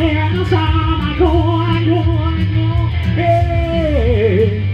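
Rock music: electric guitar played with a man singing a melody line, holding a long note about three seconds in that wavers and falls.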